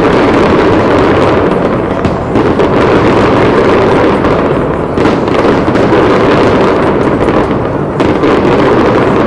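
Fireworks display going off in a loud, continuous barrage of bangs and crackling, with sharper bangs every few seconds.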